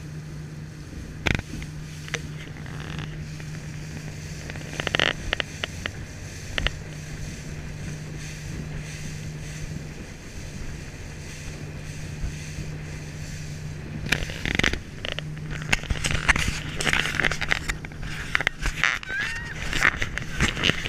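A RIB's engine running with a steady low hum, with a few sharp knocks in the first half. From about two-thirds of the way in, dense irregular slapping and buffeting takes over.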